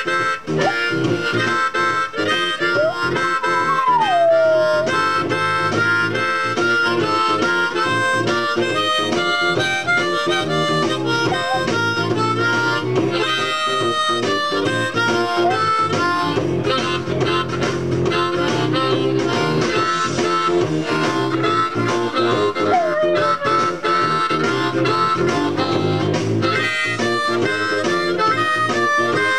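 Diatonic harmonica played in cross harp (a Bb harp in second position, key of F), with sustained, bent blues notes over a blues backing track with guitar.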